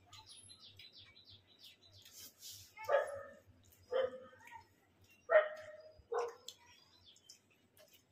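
A dog barking off-camera: four short single barks, each about a second apart. Faint high chirps come before them.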